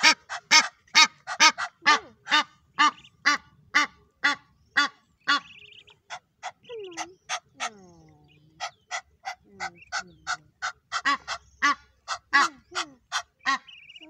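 Egyptian goose honking loudly and repeatedly, about two to three harsh calls a second, with a few falling notes mixed in and brief breaks about six and eight seconds in.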